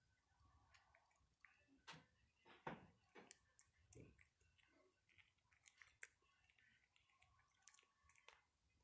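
Faint scattered clicks and soft mouth sounds of a Java macaque grooming a person's hair close to the microphone, picking through the strands with its fingers and bringing them to its mouth.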